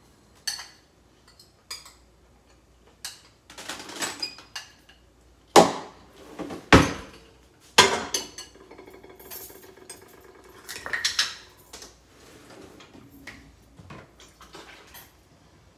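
Dishes and cutlery being handled: a metal spoon clinking and scraping against a small glass bowl, with scattered clinks and knocks. The three loudest knocks come around the middle, some leaving a short ring.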